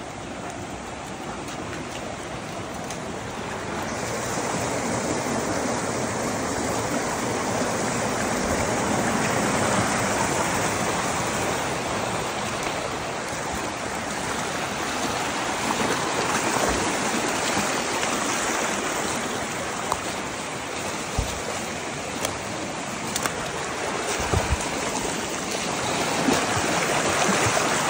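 Shallow rocky creek rushing and splashing over stones, a steady water noise that grows louder about four seconds in. A few brief low thumps are heard.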